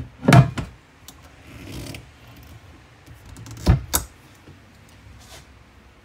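Kitchen sink faucet's pull-out spray head being handled: a knock near the start, a soft rattle, then two sharp clunks close together a little before the four-second mark as the spray head locks back into the faucet, and a small click near the end.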